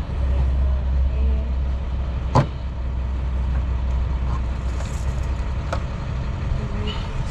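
Steady low drone of an idling vehicle engine, with a sharp click about two and a half seconds in and a fainter one near six seconds.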